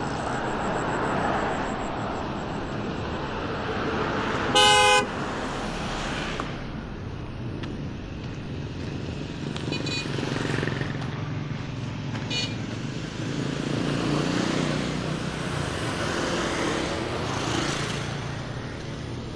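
Road traffic running past, with a loud horn blast about four and a half seconds in and two short, fainter high-pitched beeps later on.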